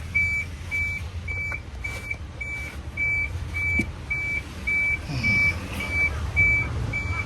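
Electronic truck warning beeper sounding steady, evenly spaced high beeps about twice a second, over the low rumble of an idling truck diesel engine.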